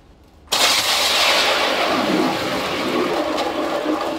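Electric ice auger starting about half a second in and running steadily, its blades grinding and churning through the ice and slush of a fishing hole.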